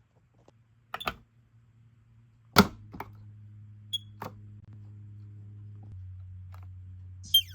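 Smoke alarm giving the short, high warning chirp of a dying unit, once about four seconds in and again near the end, over a steady low hum. Several sharp clicks and knocks fall between the chirps, the loudest about two and a half seconds in.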